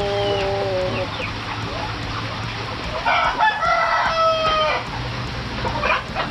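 Roosters crowing: a lower crow at the start and a louder, longer crow from about three seconds in, with a steady low hum underneath.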